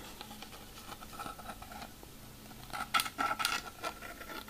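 Faint handling of small plastic model parts and tools on a work table: quiet at first, then a cluster of small clicks and taps near the end, with a faint steady high tone alongside.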